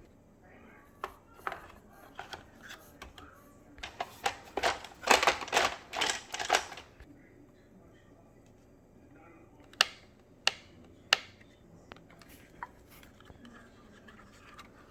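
Handling noises: scattered clicks and knocks, a dense run of rustling and scraping about four to seven seconds in, then three sharp clicks around ten to eleven seconds in.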